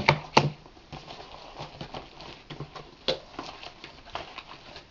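Cardboard shipping box being opened and its packed contents handled: a few sharp cracks and taps at the start, then irregular light taps and rustling.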